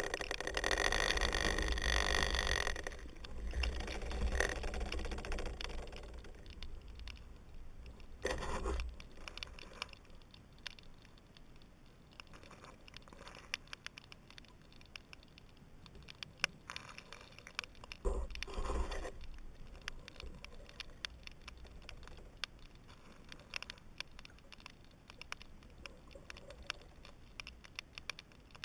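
Underwater sound heard through a GoPro's waterproof housing: a steady crackle of many small sharp clicks. Louder rushing surges with a low rumble come at the start, about 8 seconds in and about 18 seconds in.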